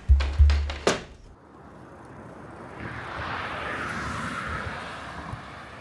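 A sliding glass window in a wooden frame clacking as it is pulled open, over the last low beats of background music, with the loudest clack about a second in. A soft rushing hiss then swells up and fades away.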